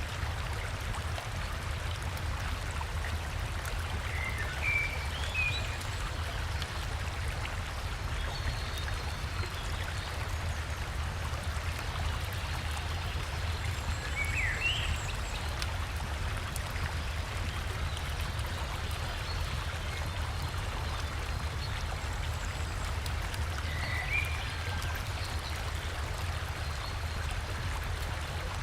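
River water flowing steadily, with a deep continuous rush. A bird gives short chirping calls three times, about ten seconds apart.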